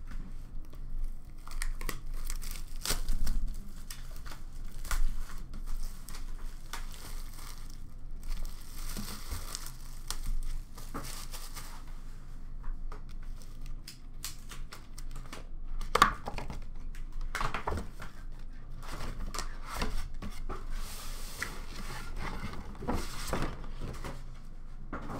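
Plastic shrink-wrap being torn off a trading-card box and crumpled, an irregular run of crinkles, tears and clicks, with one sharp snap about two-thirds of the way through. Near the end the box's cardboard outer sleeve is slid off with a longer rustle.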